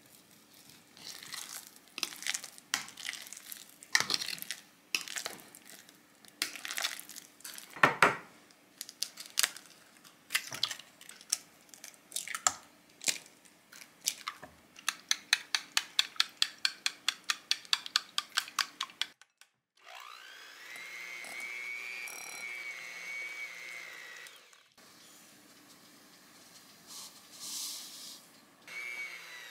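Kitchen prep sounds: scattered knocks and taps, among them eggs cracked on a bowl, then a run of rapid even clicks, about five a second. Then an electric hand mixer runs for about five seconds with a steady whine, beating butter in a glass bowl, and starts again near the end.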